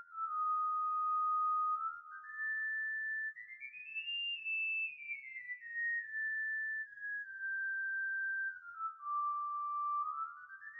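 Background music: a slow melody played on a single high, pure, whistle-like tone that slides smoothly from one long held note to the next.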